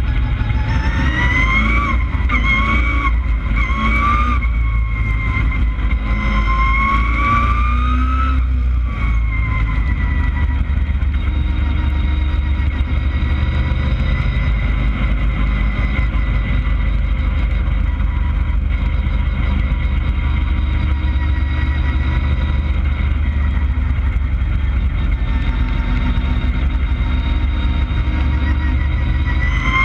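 Street stock race car's engine heard from inside the cockpit under racing load, its pitch rising and dropping several times in the first nine seconds, then holding steady.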